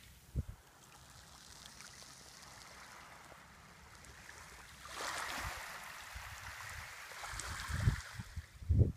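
Small waves lapping and washing on a pebble shore, swelling about five seconds in. A few low thumps near the end.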